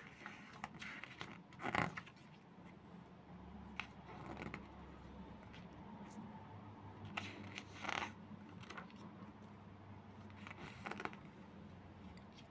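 Pages of a glossy paper CD booklet being turned and handled, with short rustles and flaps, the loudest about two seconds in and again around eight seconds, over a faint steady hum.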